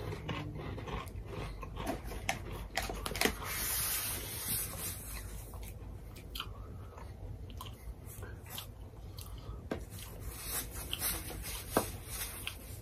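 Pringles potato crisps being bitten and chewed: an irregular run of small, sharp crunches.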